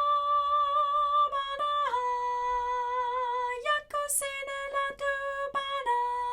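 A woman's voice singing a phrase solo: a long high note held for about two seconds, then stepping down to a lower note and carrying on in short sung syllables, briefly rising again about halfway.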